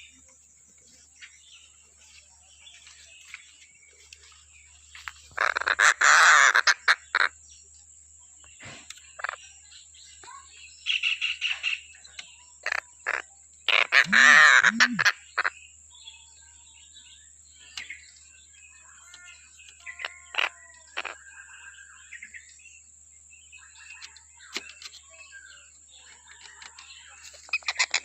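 Collared kingfisher (tengkek buto) calling: two loud, harsh rattling bursts, one about a third of the way in and one near the middle, with scattered short chirps and call notes between them. A faint steady high whine runs underneath.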